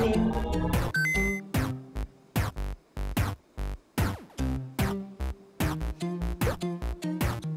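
Electronic background music with a drum-machine beat. A rising synth sweep ends about a second in with two short high beeps, and a steady beat follows.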